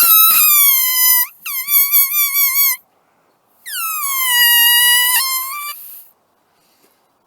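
A blade of grass stretched between the thumbs and blown as a reed, giving three loud, shrill squealing whistles. The middle one wavers in pitch, and the third starts higher and slides down before holding steady.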